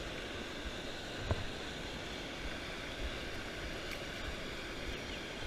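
Steady rushing of river water pouring over a weir and through rapids, with a single sharp click about a second in.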